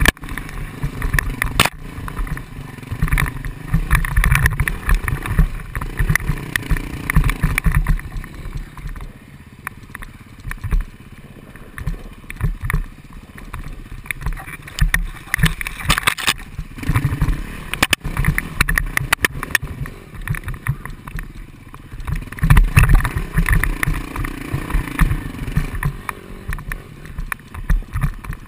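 Dirt bike engine running unevenly on a rough trail, recorded on board the moving bike, with a heavy, uneven low rumble and frequent knocks and clatter as it goes over the bumps.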